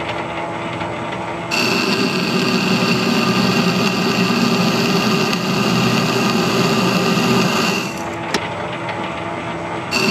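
Metal lathe running slowly while screw-cutting an internal thread in a cast-iron back plate, the threading tool cutting inside the bore. The machine noise grows louder and brighter about a second and a half in, drops back near eight seconds, and one sharp click follows shortly after.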